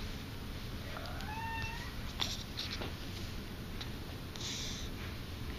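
Newborn baby with the hiccups: a short rising squeak about a second in, followed by a few quick, sharp hiccup sounds.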